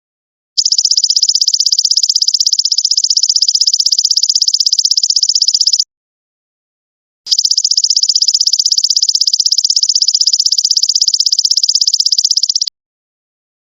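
Golden locust (belalang emas) insect calling: a loud, high, rapidly pulsing buzz in two runs of about five seconds each, each breaking off abruptly. One gap of about a second and a half falls in the middle, another near the end.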